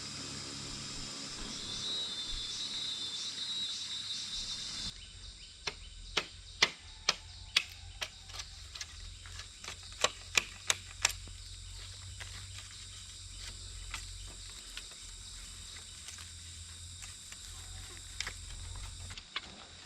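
Insects chirring for the first five seconds. After an abrupt change, two runs of sharp knocks follow, strikes about half a second apart.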